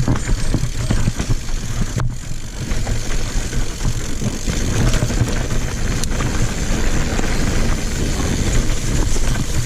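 Mountain bike riding down a singletrack trail: continuous rumble of wind on the microphone and tyres over dirt and rocks, with the bike rattling and a sharp knock about two seconds in and another about six seconds in.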